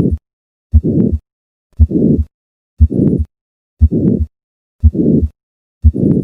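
Heart sounds of hypertrophic cardiomyopathy through a stethoscope at the fourth left intercostal space: about one beat a second, each a first heart sound followed by a systolic murmur running up to the second heart sound, with silence between beats. The murmur is the sign of the obstructive outflow of a thickened heart muscle.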